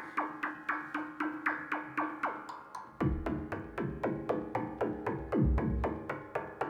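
Make Noise Shared System modular synthesizer playing a patched percussion pattern: short pitched hits about four a second, each dropping quickly in pitch. About three seconds in, a deep bass layer joins under them.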